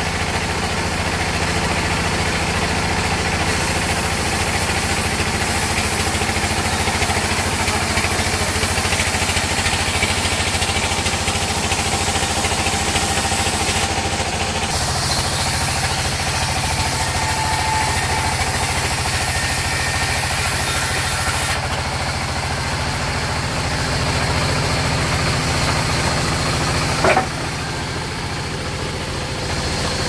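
A large belt-driven sawmill band saw running steadily, its drive making a constant low engine-like hum, with the high hiss of the blade cutting through wood. One short, sharp knock comes near the end.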